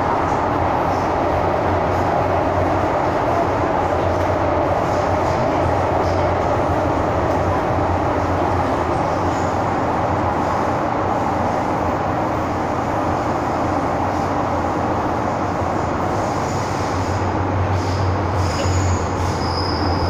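MTR M-Train heard from inside the passenger car while running through a tunnel: a steady rumble of wheels and running gear, with a brief high squeal near the end.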